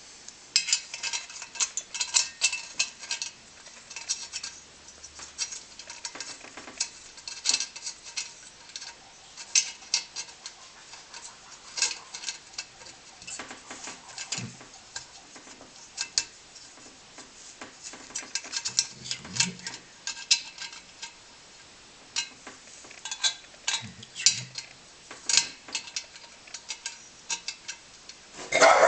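Irregular light metallic clinks and clicks of small brass blow torch parts being handled and fitted back together, with a few dull knocks.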